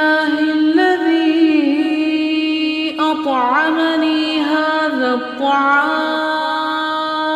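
A voice chanting a slow melody in long drawn-out notes, with a wavering, ornamented run from about three to five seconds in.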